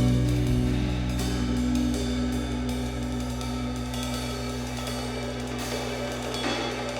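Background music: sustained low notes with light percussion ticks, slowly getting quieter.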